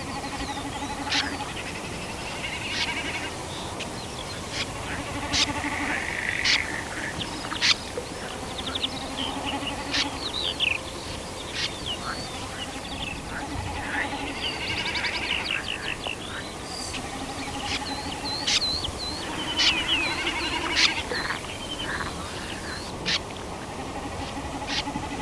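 Wetland ambience full of bird calls: many short sharp chirps and fluttering twitters, with a lower, drawn-out call recurring every few seconds.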